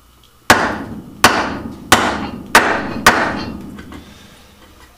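Wooden-handled chisel struck five times by a mallet, each blow a sharp knock with a short ringing tail, about two-thirds of a second apart, as the chisel chops out a long mortise in red oak.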